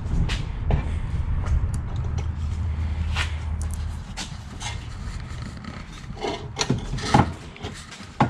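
Hand tools working on a side-by-side's exhaust: scattered knocks, clicks and scraping of metal, the sharpest knock about seven seconds in, over a low steady rumble that fades after about four seconds.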